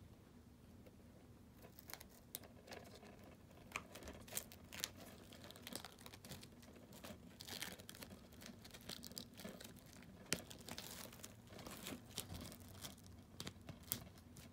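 Plastic shrink-wrap on a new DVD case crinkling and tearing as it is picked at and peeled off. Faint, irregular crackles and snaps start about two seconds in.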